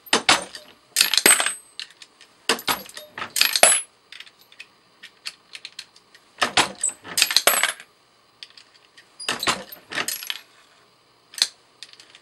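Brass pistol cases clinking and clattering in an RCBS Rock Chucker reloading press as it is cycled and the Rapid Case Kicker knocks each case off the shell holder. The sound comes in repeated bursts of sharp metallic clinks every one to three seconds.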